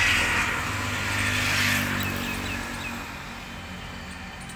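A motor vehicle driving past, its engine hum and road noise loudest at the start and fading away over about three seconds, leaving a quieter outdoor background.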